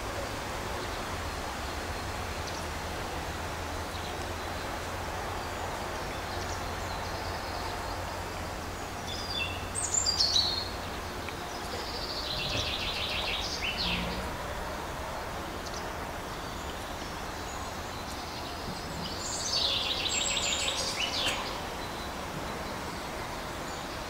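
Songbirds singing: three short phrases of quick, high, slightly descending notes over a steady hiss from the trail camera's microphone.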